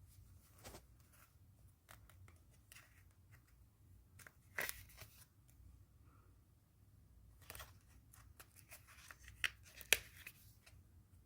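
Items and packaging being handled at close range: scattered light rustling with a few sharp snips or clicks, the loudest about four and a half seconds in and twice near the end.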